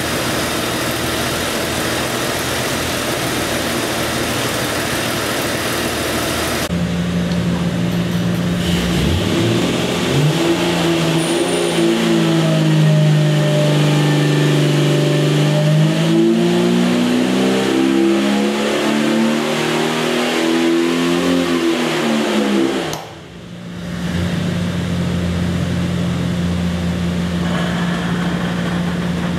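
Jeep 4.6-litre stroker inline-six running on an engine dyno, then making a full-throttle dyno pull: its note dips, then climbs steadily for about ten seconds as the revs sweep up. The throttle snaps shut about three-quarters of the way through and the engine falls back to steady running.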